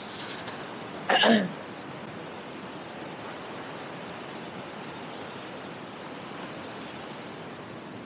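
Steady hiss of small waves breaking on the beach. About a second in, one short, loud voice-like sound falls steeply in pitch.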